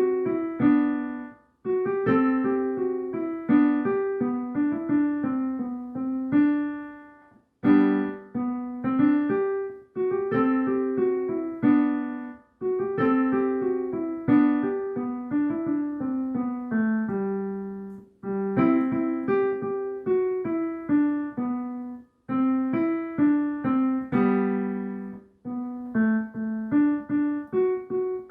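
Solo piano piece, a melody of struck notes that ring and fade, played in phrases separated by short pauses.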